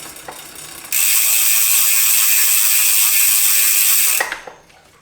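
Bicycle rear freehub pawls buzzing as the rear wheel spins freely. A fast, even ratcheting starts abruptly about a second in, holds steady for about three seconds, then fades out.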